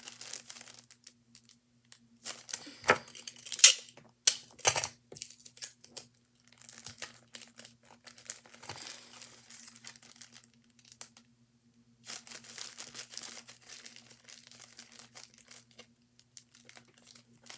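Plastic baggie filled with shaving cream and paint being squeezed and handled, crinkling irregularly, with a few louder crackles about three to five seconds in.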